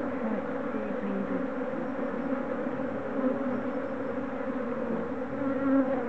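Honeybees from an opened hive buzzing in a steady mass hum, many wingbeats overlapping.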